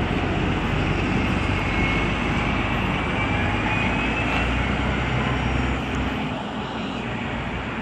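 Orion VII hybrid-electric city bus pulling away, its drive running steadily with a faint rising whine, the sound easing a little near the end as it moves off.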